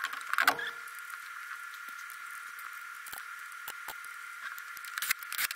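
Hands fitting a go-kart wheel onto its axle hub and working at the hub nut: scattered small clicks and rubbing, with louder clatters about half a second in and again near the end, over a faint steady high whine.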